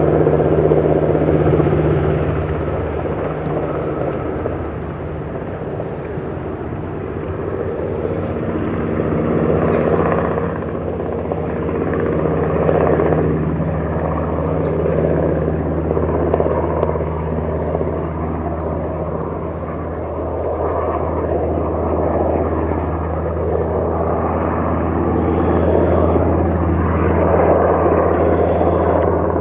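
Sikorsky S-92A twin-turboshaft helicopter flying low overhead: a steady rotor and turbine drone that swells and fades a little as it moves.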